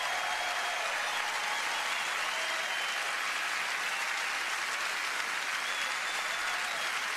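Large theatre audience applauding steadily, with some cheering over the clapping.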